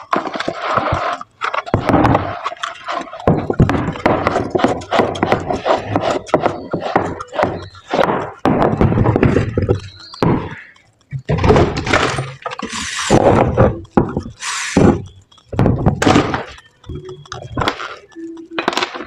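Irregular knocks, cracks, clinks and scraping of hand tools working on a horn loudspeaker's housing, some strokes short and sharp, others longer rasping scrapes.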